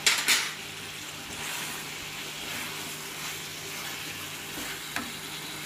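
Mutton trotters in chilli sauce sizzling steadily in a pan on high flame, with a short loud rush of noise at the start and a single light knock about five seconds in.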